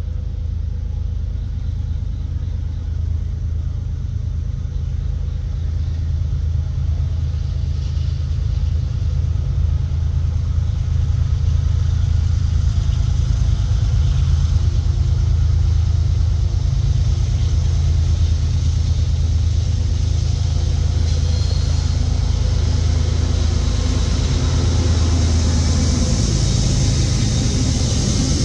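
CSX diesel freight locomotive drawing near and passing, its engine giving a deep, steady rumble that grows a little louder partway through, followed by the rolling rumble of the freight cars.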